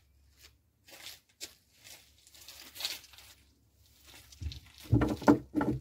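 Hands fitting a replacement chrome bathtub drain fitting into the hole in the tub: scattered light scrapes and rustles, then a cluster of louder knocks and thuds near the end.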